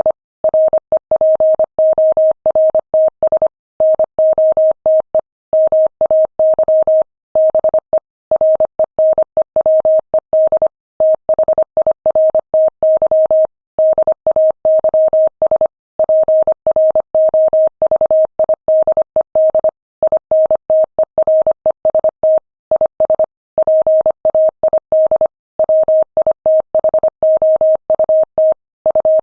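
Morse code sent at 25 words per minute: a single-pitch beep keyed on and off in short dots and longer dashes, with brief pauses between words, spelling out a freight and accounts dispatch message.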